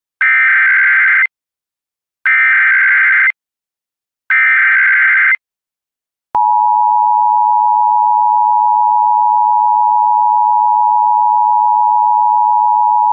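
Emergency Alert System broadcast opening: three roughly one-second bursts of SAME header data tones about two seconds apart, then the steady EAS two-tone attention signal (853 and 960 Hz) starting about six seconds in. Together they announce an Evacuation Immediate warning, the attention tone sounding just before the spoken alert.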